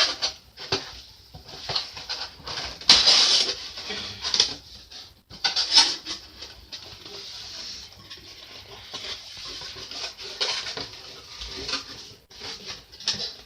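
Cardboard box and packaging being handled: irregular scratchy rustling and scraping, with louder bursts about three, six and ten seconds in.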